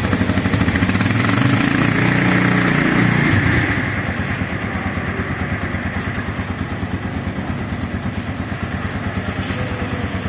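Suzuki GS150SE motorcycle's single-cylinder 150 cc four-stroke engine running on its exhaust, held at a raised speed for the first few seconds, then dropping back about four seconds in to a steady idle with even exhaust pulses.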